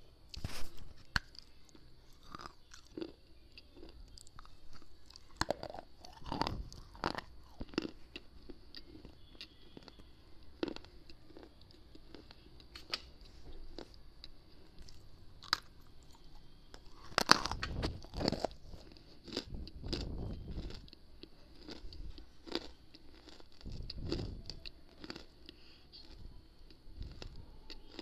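Slate cube being bitten and chewed right at a clip-on microphone: irregular crisp crunches, the loudest cluster a little past halfway.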